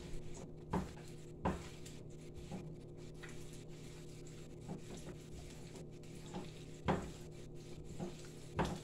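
A spatula scraping and tapping in a non-stick frying pan as an egg is turned, giving about half a dozen short, scattered knocks over a steady low hum.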